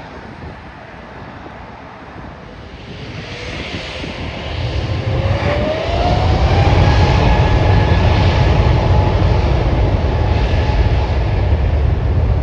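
Airbus A350's Rolls-Royce Trent XWB jet engines spooling up to takeoff power: a whine rising in pitch over a couple of seconds, then a loud steady roar with a deep rumble and a held whine.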